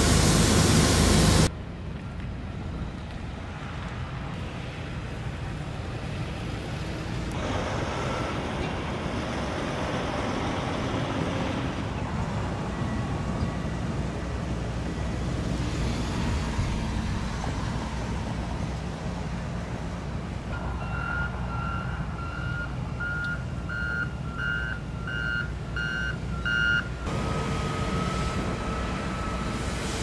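Heavy construction machinery running with a steady low engine rumble, after a louder rush of noise that cuts off abruptly in the first second or two. About two-thirds of the way through, a reversing alarm beeps about nine times, roughly one and a half beeps a second, followed by a steady held tone near the end.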